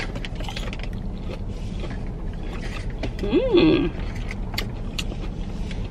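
Chewing a crunchy breaded jalapeño cheese popper, with scattered crisp clicks from the breading and a short hummed "mm" about three and a half seconds in, over a steady low hum.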